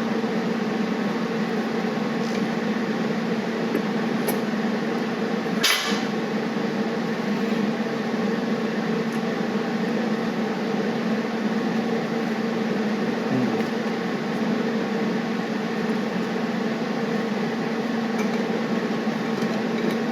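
Steady hissing roar of a brazing torch flame heating a nut on a steel clamp, over a constant low hum. A single sharp click about six seconds in.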